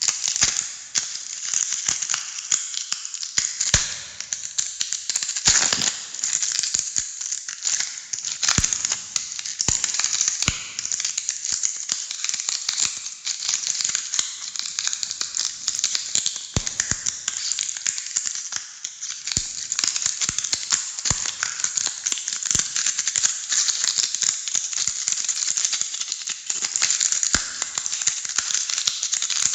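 Freezing-ice sound effect: a dense, continuous high crackling of ice, with sharper single cracks standing out every few seconds.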